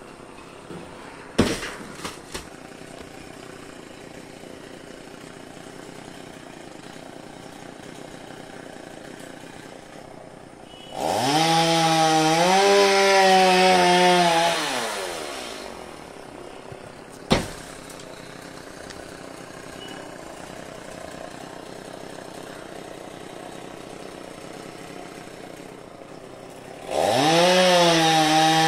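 Chainsaw idling, then revved hard for about four seconds as it cuts into the areca palm trunk, falling back to idle, and revved again near the end. Two sharp single knocks stand out, one early and one about halfway through.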